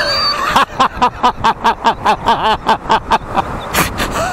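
A man laughing hard in a quick, even run of "ha" pulses, about five a second, starting about half a second in, over steady road and wind noise from the moving e-bike.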